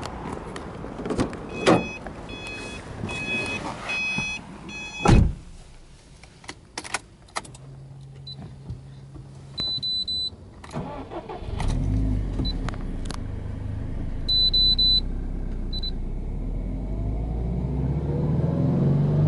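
A car's chime sounds, then a door shuts with a thud about five seconds in. Clicks and short electronic beeps follow as the ignition comes on, with a brief low hum. About eleven seconds in, the Subaru Impreza WRX STI Spec C's 2.0-litre turbocharged flat-four boxer cranks and starts, then idles steadily, running a little faster near the end.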